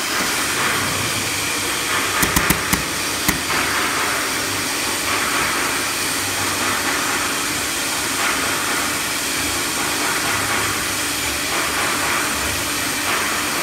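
CNC router with a 9 kW spindle machining a panel: a steady airy whir and hiss that swells and eases every second or two, with a quick run of sharp clicks about two to three seconds in.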